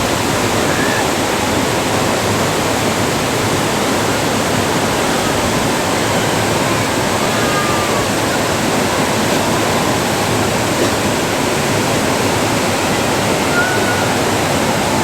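River rapids rushing: loud, steady whitewater noise with no let-up.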